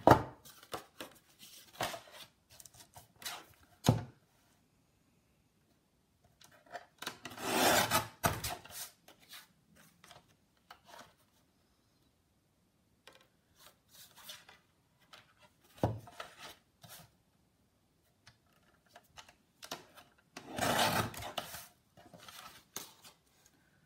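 Card being trimmed to size in two cuts, each about a second long, one about a third of the way in and one near the end, with scattered taps and clicks between.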